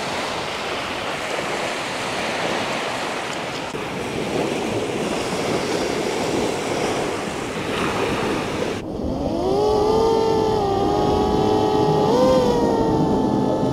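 Surf washing onto a sandy beach, with wind on the microphone. About nine seconds in, it cuts to a quadcopter drone's propeller whine, which rises in pitch and then holds steady with a brief upward blip.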